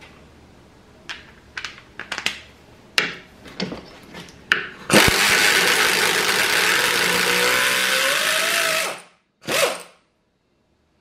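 Harbor Freight 3/8-inch air ratchet driving a bolt into a wooden board: a few clicks and knocks as it is fitted onto the bolt, then about four seconds of steady running with air hiss that cuts off, followed by one short burst.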